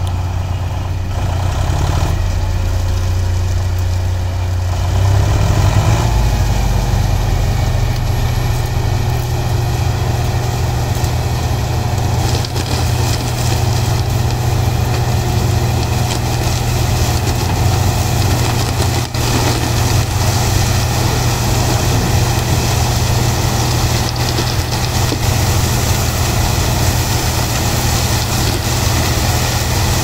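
John Deere sugarcane harvester and the tractor driving beside it, their diesel engines running under load as a steady heavy hum with a broad rushing noise over it. The engine pitch rises slightly about five seconds in, then holds steady.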